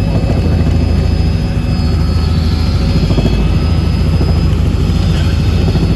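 Helicopter heard from inside the cabin in flight: a loud, steady engine and rotor drone with a rapid, even blade chop.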